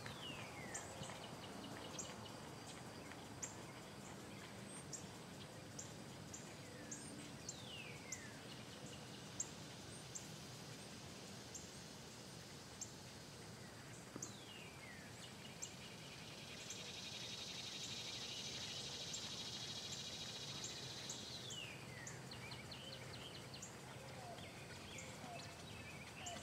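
Outdoor birdsong: a falling whistled call repeated four times, about every seven seconds, over many short high chirps, with a high buzzing trill for a few seconds past the middle.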